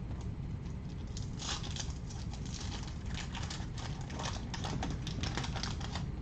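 Crinkling and crackling of a wax-paper baseball card pack being opened and its cards handled: many quick, irregular crackles over a steady low hum.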